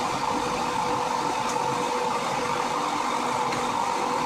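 Steady hum of a car heard from inside the cabin: engine and cabin noise with a constant mid-pitched tone that does not rise or fall.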